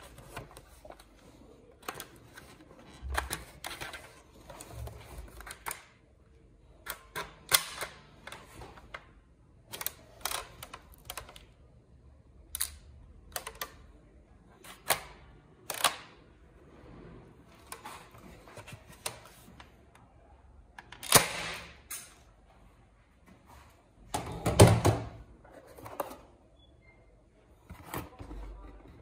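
A plastic toy sniper rifle handled: irregular clicks and clacks of its hollow plastic body and parts, with two louder clattering bursts about two-thirds through. Cardboard rustles near the end as the box is handled.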